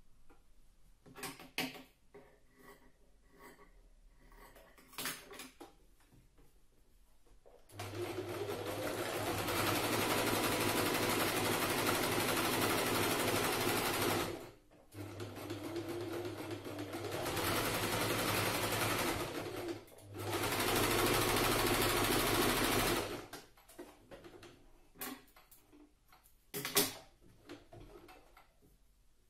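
Janome electric sewing machine stitching fabric in three runs of several seconds each, with short stops between them, starting about eight seconds in and ending about twenty-three seconds in. Light clicks and knocks come before and after, as the fabric and the machine are handled.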